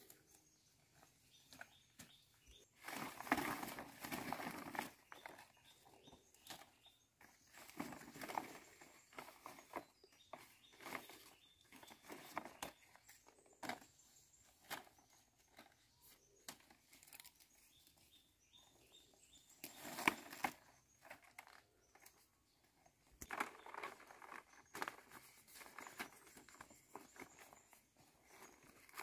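Large dong leaves rustling and crackling in irregular bursts as they are picked, shaken and stacked by hand, loudest about three seconds in and again about twenty seconds in.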